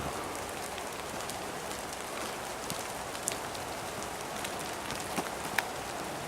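Rain falling on the woodland: an even patter with scattered sharper drop ticks, a couple of louder ones near the end.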